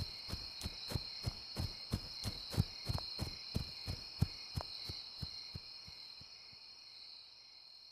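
Running footsteps, about three a second, fading into the distance and gone after about seven seconds, over a steady chirring of crickets.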